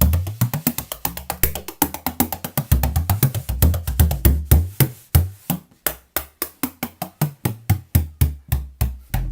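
18-inch Meinl tunable bodhrán beaten in a quick, continuous rhythm, each stroke a sharp crack over a deep boom. About halfway through the strokes thin out to roughly four a second.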